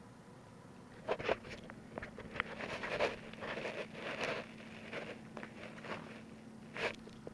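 A cat playing at a plastic ball-track toy on carpet: irregular scraping and rattling with several sharp clicks, starting about a second in.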